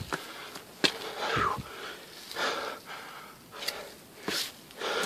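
A hiker breathing hard while walking, three or four heavy breaths about a second apart, with a few sharp clicks in between.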